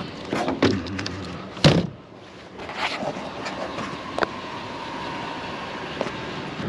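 Several knocks and clunks, the loudest a sharp bang about one and a half seconds in, over the steady noise of a running vehicle.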